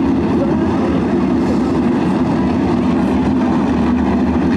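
Engines of 305 sprint cars, small-block V8s, running hard as the cars race past together in a steady, dense drone.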